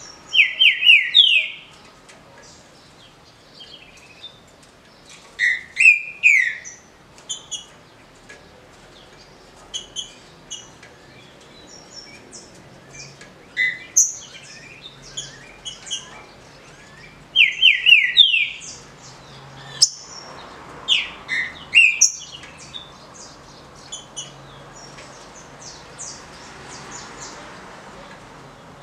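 Green-winged saltator (trinca-ferro) singing its short song: four loud phrases of quick, clear descending whistled notes, each about a second long, with short high chirps scattered in between.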